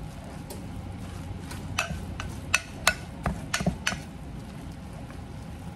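Red silicone spatula mashing and stirring canned salmon in a glass measuring bowl, with scattered light knocks of the spatula against the glass, most of them in the middle.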